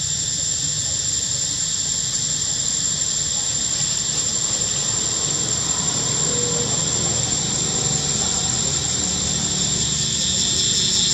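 Steady, high-pitched drone of insects, with a low rumble underneath.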